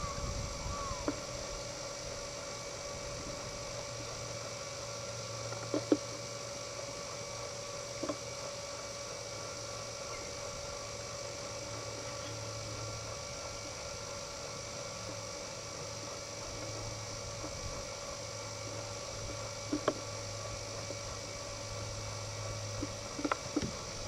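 Steady electrical hum and hiss on the recording, with a few brief faint knocks.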